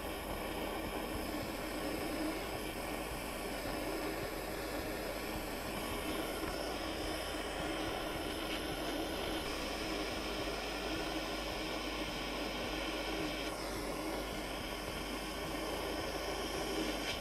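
Handheld butane torch burning with a steady rushing hiss as its flame heats a silver ring's joint for soldering.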